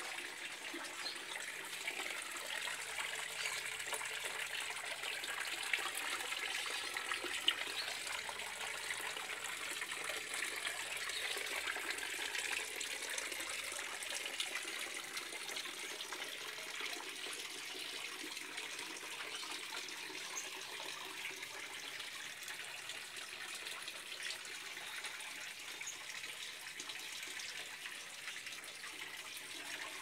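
Water from a small garden waterfall falling and splashing steadily onto stone, a constant hiss of running water. Two brief knocks sound about six and seven seconds in.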